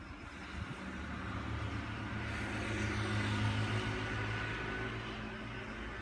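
A motor vehicle passing by with its engine running: it grows louder to a peak a little past the middle, then starts to fade.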